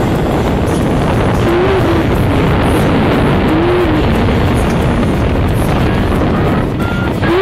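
Airflow of paraglider flight buffeting the camera's microphone: a loud, steady rush, heaviest in the low end.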